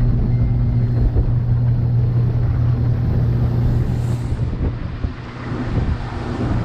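A 90 hp outboard motor pushing a boat at cruising speed: a steady low engine hum, with water rushing in the wake. About four seconds in the hum drops back and the rush of water and wind is more to the fore.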